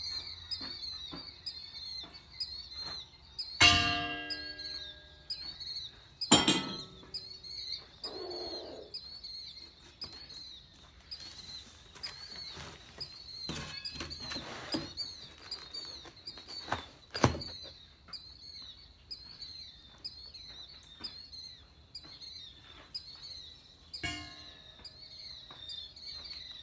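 Cardboard shipping boxes of sawmill parts being opened and handled: flaps rustling and scraping, and several sharp knocks, the loudest about four seconds in with a brief metallic ring. Birds chirp steadily in the background.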